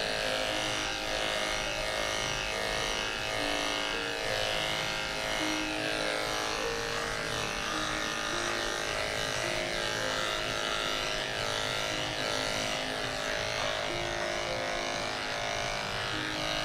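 Corded electric pet grooming clippers running with a steady buzzing hum as they shave off a severely matted coat close to the skin.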